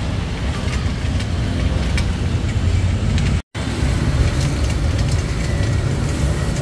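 Steady low rumble of road traffic, dropping out completely for an instant about three and a half seconds in.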